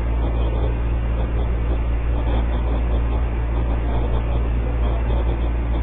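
Steady low hum under a constant background noise, unchanging throughout.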